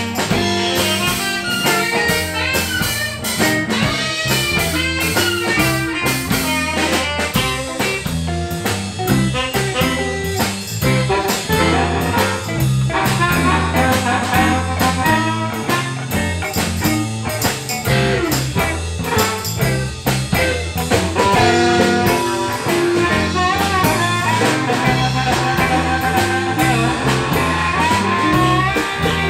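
A live blues band playing a shuffle, with electric guitar, bass guitar and drum kit, and a blues harmonica playing over it.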